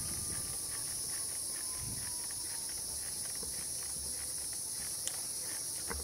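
Insects buzzing steadily at a high pitch in the surrounding woods, over the low rumble of the trike rolling on pavement and a faint quick ticking.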